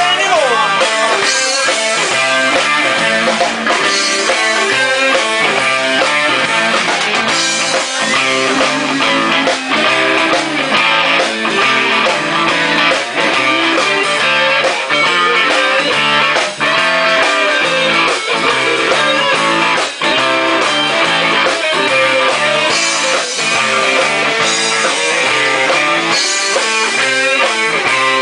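Live band playing a passage without vocals: electric guitars over a drum kit with a steady beat.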